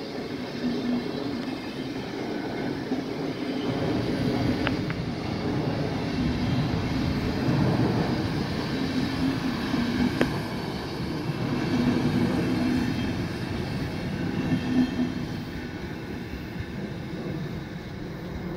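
Deutsche Bahn Intercity passenger coaches rolling past: a steady rush of wheels on the rails, with two brief sharp clicks about five and ten seconds in. The noise trails off near the end as the last coach goes by.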